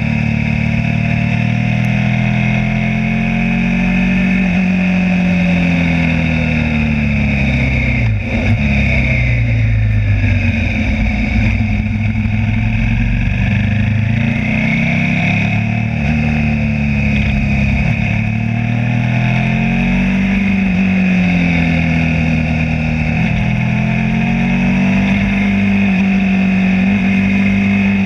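Suzuki SV V-twin motorcycle engine under way, its pitch rising and falling again and again as the throttle opens and closes through the bends. There is a brief dip about eight seconds in.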